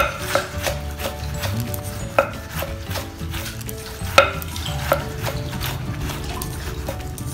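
Knife shredding leafy greens on a wooden chopping board: a run of small crisp cuts with a few sharper knocks of the blade striking the board, the loudest right at the start and about two and four seconds in.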